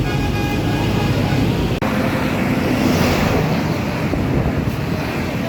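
A bus's telolet basuri musical horn sounding several notes at once, cut off abruptly a little under two seconds in. After it comes a steady rush of vehicle noise with wind on the microphone.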